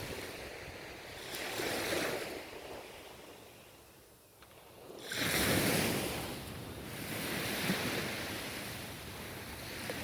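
Ocean waves breaking on the shore: a smaller wave about 2 seconds in, a lull, then a larger wave crashing in suddenly about 5 seconds in and washing up, with another swell near the end. Wind on the microphone underneath.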